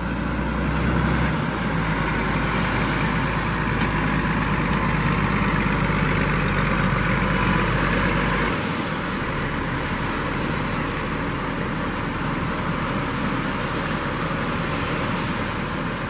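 Surf washing onto the beach with the low rumble of a beach-launch tractor's diesel engine running, the rumble dropping away about halfway through.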